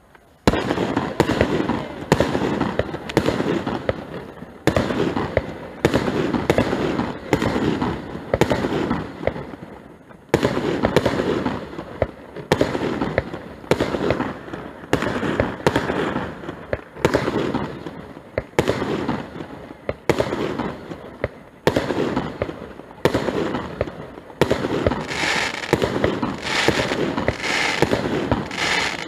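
Aerial firework shells bursting in quick succession, about one bang a second, each trailing off in an echo. Near the end, crackling joins the bangs.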